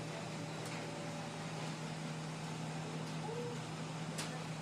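Background noise: a steady low hum under an even hiss, with a couple of faint clicks and no clear sound event.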